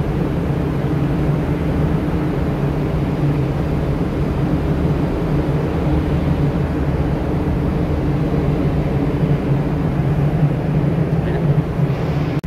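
Steady low machinery hum with an even rushing noise over it, the ship's running machinery heard on deck at sea.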